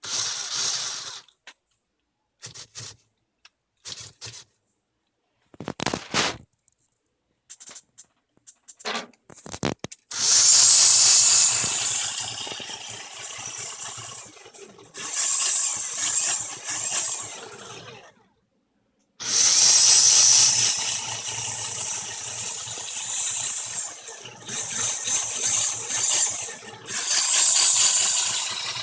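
Electric motors of a Lego Power Functions RC drift car whirring with a high-pitched whine, first in several short bursts, then running for long stretches with a brief stop in the middle.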